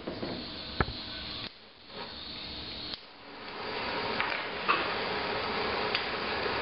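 Handheld butane torch turned on about three seconds in, then burning with a steady hiss. A few light clicks and knocks come from handling the canister and metal parts before and during.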